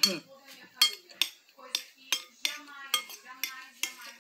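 A metal spoon clinking and scraping against a glass plate while scooping up rice and beans, in repeated sharp clinks about two a second.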